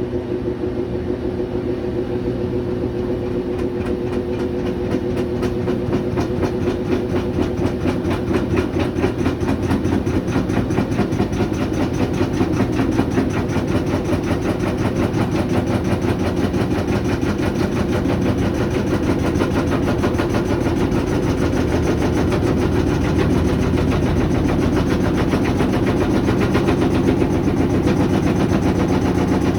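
Washer drum of a GE GUD27ESSM1WW stacked washer-dryer spinning empty, with loud, rapid repeated banging over the motor hum, growing slightly louder as the spin goes on. The banging happens even with nothing inside, so the fault lies in the machine, not in an unbalanced load.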